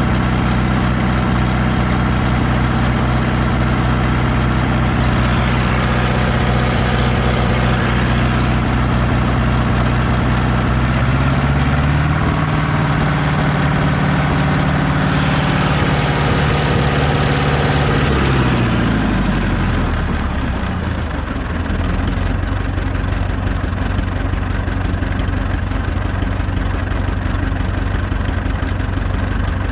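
Ursus C-360 tractor's four-cylinder diesel engine running steadily. About eleven seconds in it is revved up to about 2100 rpm and held there. From about 19 seconds it is throttled back, the pitch sliding down to a slow idle near 700 rpm.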